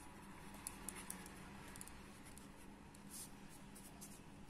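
Pen scratching faintly across paper in short strokes as words are written by hand, over a faint steady low hum.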